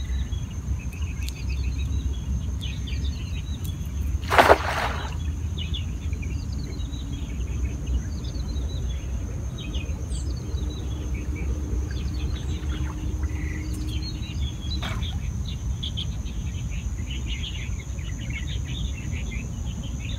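Birds chirping over a steady low rumble and a steady high whine, with a short, loud splash about four and a half seconds in as a cast net lands on the water.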